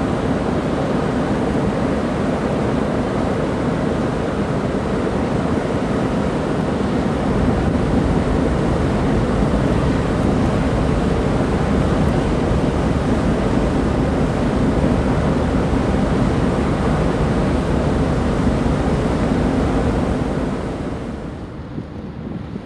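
Steady rumble of a locomotive-hauled passenger train crossing a steel truss railway bridge, mixed with wind noise on the microphone; the noise drops away suddenly near the end.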